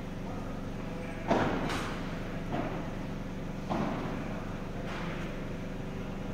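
Padel rally: about five sharp hits of the ball on rackets, court and glass walls, each echoing in a large indoor hall; the first, about a second in, is the loudest, with another strong racket strike a little past the middle.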